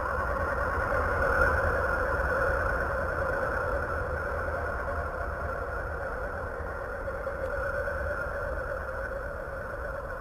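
Steady, eerie drone, presented as the 'song' of the planet Uranus: a hissing hum with two slowly wavering tones over a low rumble, swelling slightly about a second and a half in.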